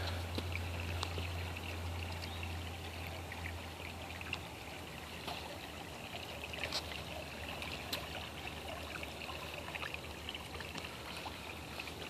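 Shallow creek water flowing and trickling, a steady faint rush, with a few faint clicks and a low hum that stops about four seconds in.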